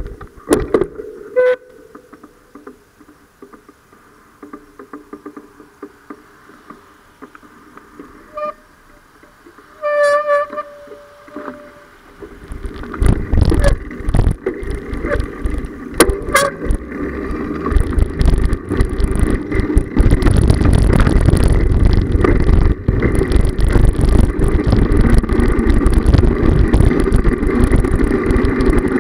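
Bicycle ride filmed from a handlebar camera: quiet street sound at first with a short horn toot about ten seconds in, then from about twelve seconds a loud rush of wind and road rumble on the microphone as the bike rolls along, with knocks from bumps.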